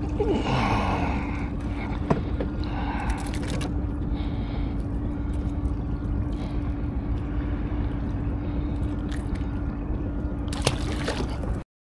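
Steady low rumble with a constant hum and a few faint clicks, cutting off suddenly near the end.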